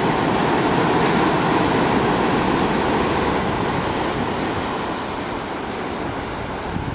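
Heavy ocean surf breaking and washing in white foam over a rocky shore: a steady rush of water that eases off slightly in the second half.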